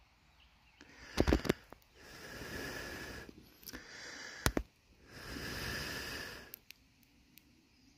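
A person blowing on a small smouldering fire of pine needles and twigs to bring up a flame: three long breaths of about a second each, with a couple of sharp knocks in between.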